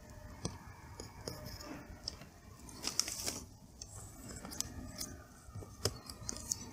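Hands handling a laptop's plastic screen lid and its metal hinge bracket, making scattered small clicks and scrapes.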